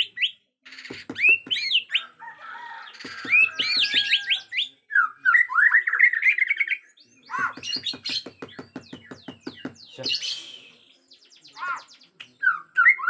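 Bornean shama (murai batu) singing in its agitated full song: a rapid string of varied loud whistled phrases that rise and fall. The whistles are broken by several runs of fast, evenly spaced clicking rattles.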